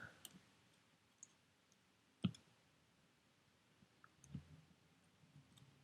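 Faint, sparse clicks and taps of small repair tools and phone parts being handled while cable connectors are fitted, with one sharper click a little over two seconds in.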